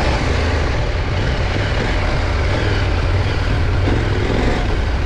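KTM 890 Adventure R's parallel-twin engine running steadily as the bike is ridden, with a steady rush of wind noise over it.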